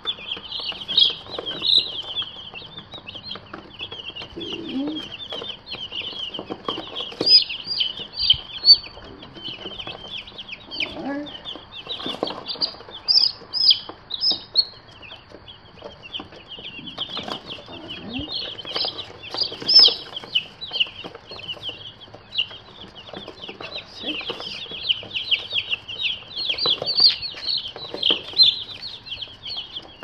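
A flock of about thirty day-old broiler chicks peeping continuously, many high, short chirps overlapping with no break.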